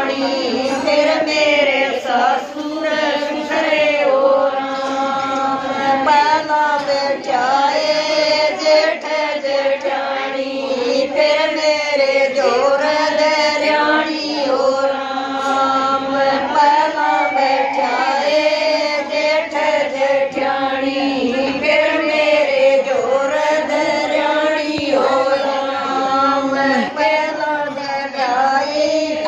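Group of women singing a Haryanvi devotional bhajan together, a chant-like melody with long held notes.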